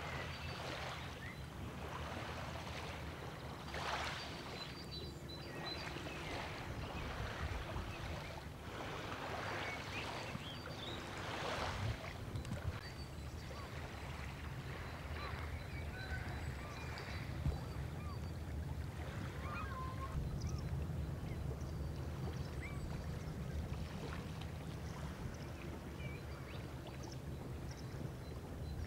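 Shoreline ambience: small waves lapping at the water's edge over a steady low rumble, with a few short bird calls about halfway through.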